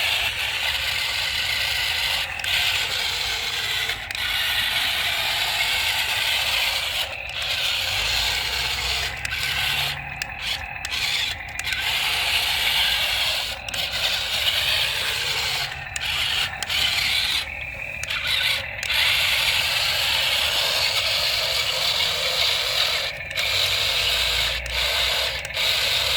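Small electric gear motors and plastic gearboxes of an RC toy excavator whirring as it is driven, stopping briefly every few seconds and starting again.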